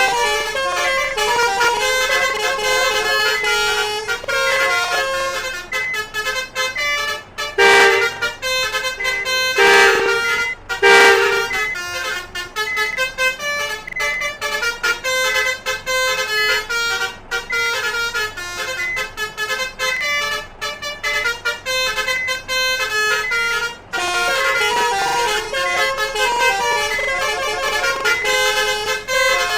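Basuri 'telolet' multi-trumpet bus horn playing a fast tune, its notes stepping quickly from one pitch to the next, with three louder, longer blasts in the middle.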